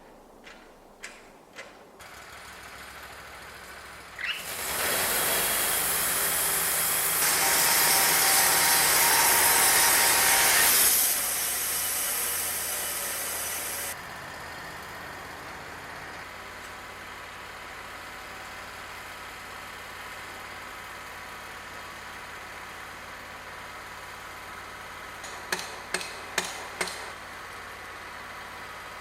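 An engine-driven machine running steadily, with a loud, rushing noisy stretch lasting about seven seconds near the start. A few sharp knocks come near the end.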